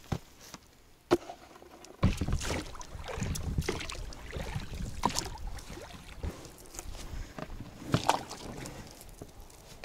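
Inflatable boat being rowed: oars working in their rowlocks with splashing, knocks and rubbing against the rubber hull. A sharp knock about two seconds in, after which the rowing noise carries on.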